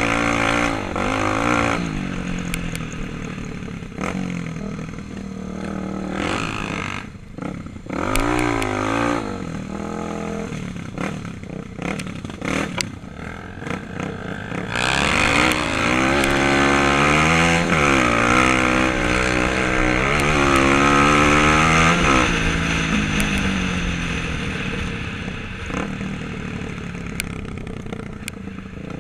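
Kawasaki dirt bike engine, heard from the rider's seat, revving as it is ridden, its pitch climbing and dropping back again and again with throttle and gear changes. It is loudest about halfway through, with a run of hard rising revs.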